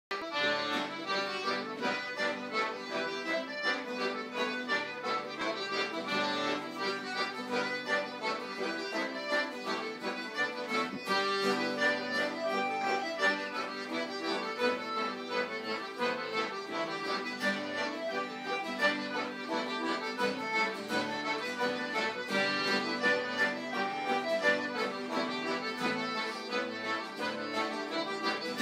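Live traditional session music: a continuous instrumental tune with quick, evenly paced notes and no singing.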